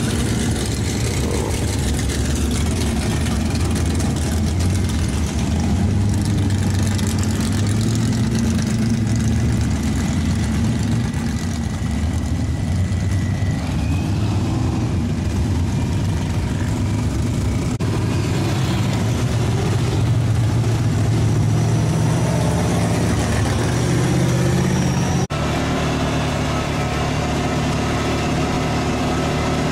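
Truck engines running and driving slowly on a dirt track: a steady low engine drone whose pitch drifts up and down. About 25 seconds in it cuts abruptly to a similar steady engine sound.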